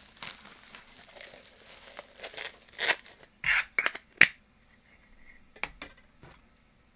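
Packing material being torn and crinkled open by hand: steady rustling, then several sharp rips about three to four seconds in, followed by a few light clicks.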